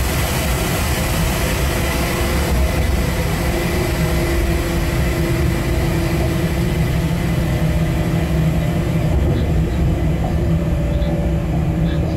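Electric freight locomotive running at speed, heard from inside the cab: a steady rumble of wheels on track with a steady multi-tone hum that shifts slightly in pitch a couple of times.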